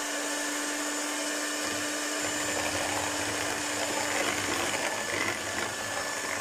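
Handheld electric mixer running steadily, its beaters whipping instant coffee, sugar and hot water in a plastic bowl toward a stiff foam. The motor's steady hum fades out about four and a half seconds in.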